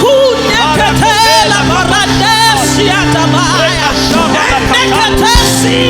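Church worship music: sustained keyboard chords under a loud singing voice with a wavering vibrato.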